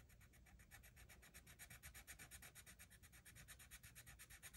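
Faint scratching of a colored pencil on paper, coloring in a swatch with rapid back-and-forth strokes, about ten a second. It grows a little louder about a second and a half in.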